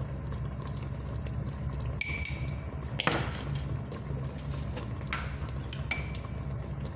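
A metal teaspoon and glass spice jar clinking four times, short ringing taps a second or so apart, over a steady low hum.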